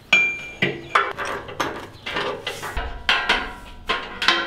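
Steel synchronizing cable being fed through a steel two-post lift column and carriage, clinking and rattling against the metal: an irregular string of sharp metallic clanks, several ringing briefly.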